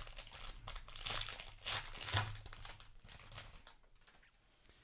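Foil wrapper of a Magic: The Gathering booster pack crinkling and tearing as it is opened and handled, a run of sharp crackles that dies away after about three and a half seconds.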